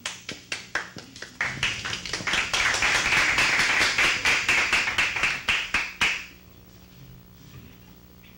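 Audience applauding: a few scattered claps build within about two seconds into full applause, which stops abruptly about six seconds in.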